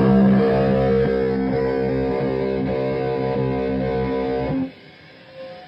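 Electric guitar chord played through a fuzz pedal and a Strymon Ultraviolet vibe, ringing on with a pulsing wobble and then stopped abruptly near the end, leaving faint noise. The player says this vibe does not work well with the fuzz.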